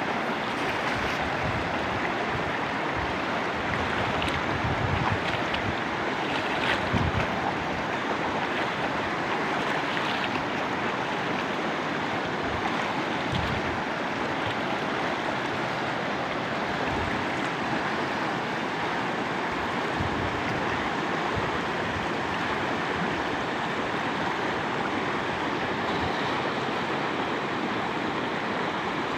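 Steady rush of flowing river water, an even hiss-like wash with occasional low thumps.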